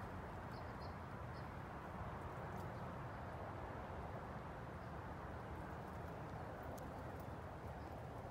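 Steady background ambience, an even hiss and low hum, with a few faint short high chirps about a second in and scattered faint clicks.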